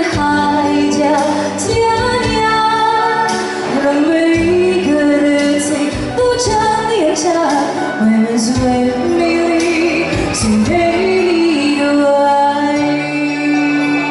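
A woman singing a Chinese pop ballad live into a microphone, over electronic keyboard accompaniment with sustained chords and a light percussive beat.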